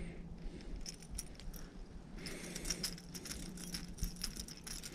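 Light clicks and small rattles of a hollow-body frog lure and fishing line being handled close by while a knot is tied. The clicks come thickest in the second half, over a low steady hum.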